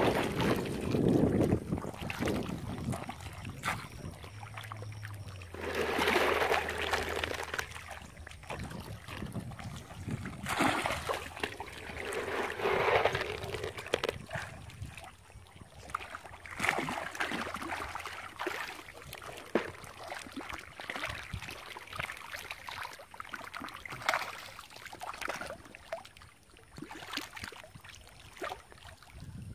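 Channel catfish feeding at the surface of a pond, churning and splashing the water in irregular bursts of crackly splashing as they take the feed.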